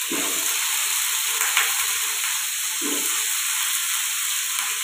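Diced potatoes, wet from soaking in water, sizzling as they fry in hot oil with cumin seeds: a steady frying hiss.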